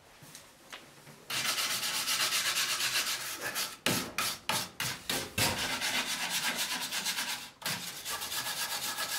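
Hand wire brush scrubbing rust and scale off the steel frame rail of a 1957 Chevy 3100 truck, in rapid back-and-forth strokes. It starts about a second in, with a couple of short breaks.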